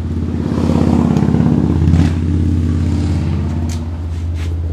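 A motor running with a steady low hum and a fast rhythmic pulsing, loudest in the first two seconds and then easing off a little.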